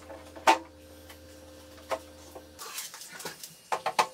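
Particleboard panels of a flat-pack chest of drawers knocking together as the top is seated onto the frame's dowels and cam screws: a sharp knock about half a second in, then a quick run of clicks and knocks near the end.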